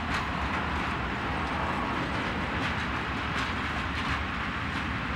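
Long freight train of open coal wagons rolling past with a steady rumble. Its wheels click repeatedly over the rail joints.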